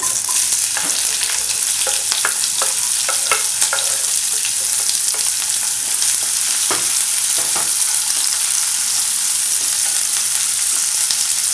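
Chopped onions frying in hot oil in a kadai: a loud, steady sizzle that jumps up right at the start as the onions go in, with scattered clicks of a spoon stirring against the pan.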